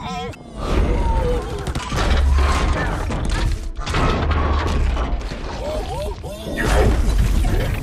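Film battle sound mix of giant robots fighting: heavy low booms and metallic crashes, including an explosion about five seconds in, over background music. Warbling electronic robot vocal glides come near the start and again after six seconds.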